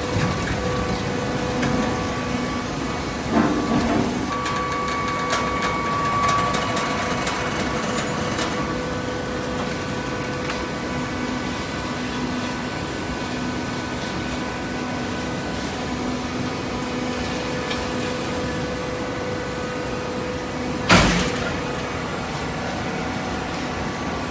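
Hydraulic cardboard baler's pump motor running with a steady hum, with a knock about three seconds in and a louder clunk near the end.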